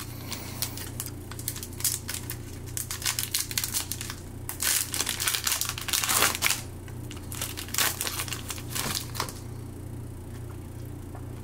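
Wrapper of a Panini Mosaic football card pack crinkling and tearing as it is ripped open and handled, in a run of irregular rustles that stops about nine seconds in.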